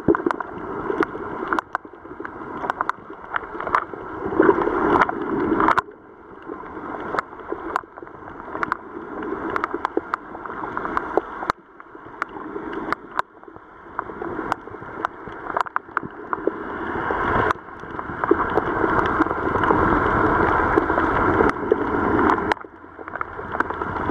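Underwater noise picked up by the camera: a rushing sound that swells and cuts off sharply about every six seconds, with sharp clicks scattered throughout.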